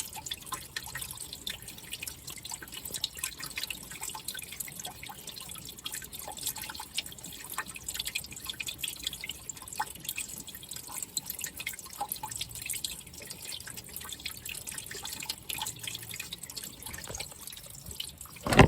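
Water dripping and splashing in many quick, irregular drops, hose water running off a car's windshield and cowl to simulate rain. A single loud knock comes just before the end.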